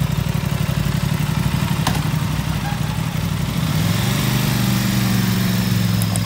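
Aprilia RS660's 659 cc parallel-twin engine running at idle through its stock underbelly exhaust, a steady pulsing note. About four seconds in the note steadies and rises a little as the bike pulls away.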